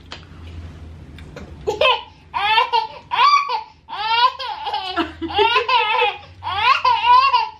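A toddler laughing and squealing in a string of short, high-pitched bursts, starting about two seconds in.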